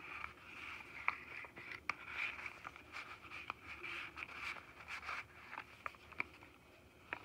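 Paper pages of a handmade junk journal being handled and turned: soft rustling with scattered light ticks and taps of paper.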